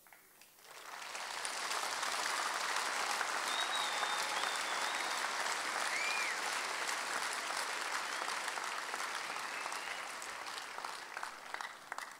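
Audience applauding, swelling within the first second or two, holding steady, then fading away near the end, with a couple of short high tones over it.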